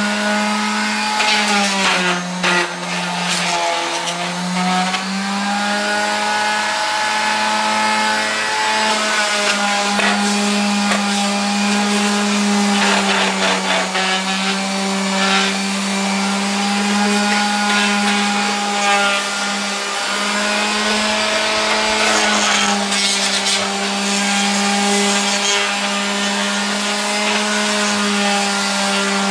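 Orbital sander running against weathered wood, a steady motor whine over the hiss of sandpaper rubbing the surface as old flaking glaze is sanded off. Its pitch dips briefly a few times in the first few seconds.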